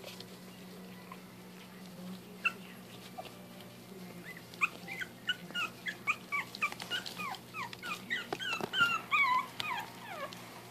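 Maltese puppies whimpering: a quick run of short, high, falling whines that begins about halfway through and grows louder near the end, with small clicks from the puppies at the food plate.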